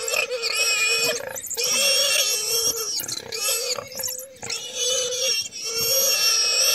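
Warthog squealing in long, loud, high-pitched screams that break off briefly several times: the distress calls of a warthog caught and being torn at by a pack of African wild dogs.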